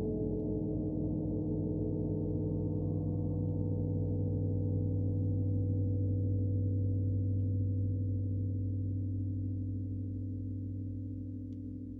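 60-inch rain gong played gently: a deep, steady hum swells to its fullest about halfway through, then slowly fades, with several steady overtones ringing above it.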